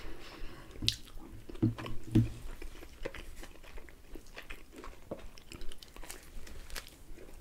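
Close-up mouth sounds of biting into and chewing pizza slices, with scattered small clicks and crunches.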